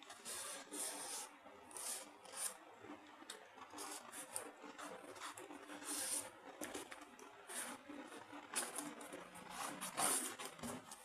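Cardboard product packaging being handled and turned over by hand: irregular faint scraping, rubbing and rustling.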